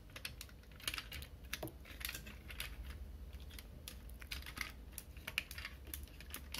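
Hard plastic parts of a Hasbro Night Ops Ratchet Transformers figure clicking and rattling lightly as hands fold them and push them into place during its transformation into vehicle mode. The clicks are small and come irregularly, several a second.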